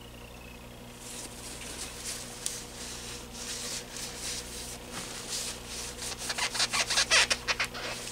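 Towel rubbing on the fan motor's metal shaft as it is wiped clean. The shaft is scored from running dry. Soft rubbing starts about a second in and turns into quick, louder strokes, about five a second, over the last two seconds.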